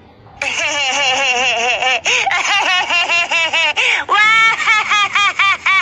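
A funny laughing ringtone: high-pitched, cartoonish laughter in quick repeated 'ha' syllables. It starts about half a second in and slows to about four laughs a second near the end.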